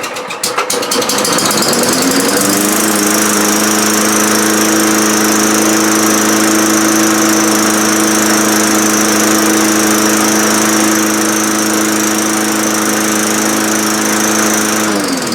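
Lawnmower's small engine pull-started on a newly fitted ignition coil. It catches at once, rises to speed over a couple of seconds and runs steadily. Near the end it winds down as it is stopped by pulling the coil wire, because the kill switch does not shut it off.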